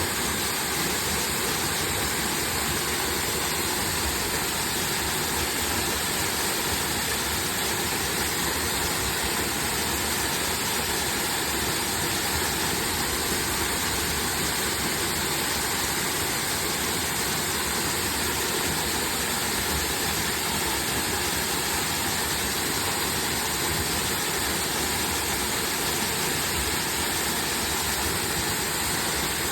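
Waterfall: a steady, unbroken rush of falling water that holds at the same level throughout.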